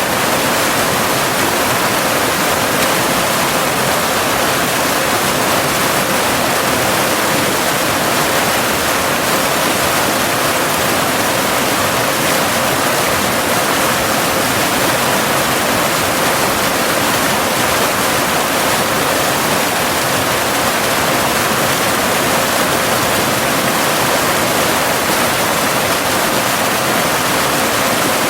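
Cascading waterfall rushing steadily, with no change in its flow. Underneath runs a faint steady pure tone, the added 528 Hz binaural delta-wave tone.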